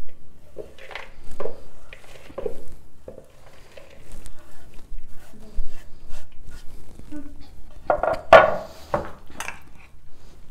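Hand scraping and brushing chopped rocket leaves off a wooden cutting board into a plastic bowl: a run of short knocks and scrapes of the board, with a louder clatter about eight seconds in.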